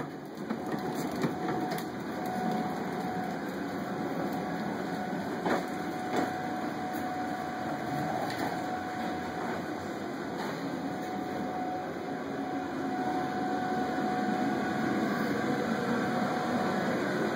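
Hard plastic wheels of a Little Tikes Cozy Coupe toy car rumbling as it is pushed across a concrete floor, with scattered clicks and knocks, over a faint steady hum.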